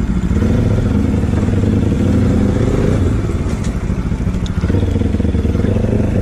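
Bajaj Pulsar NS200's single-cylinder engine running as the motorcycle is ridden, heard from the rider's seat. The engine note dips briefly about three seconds in and again a little later.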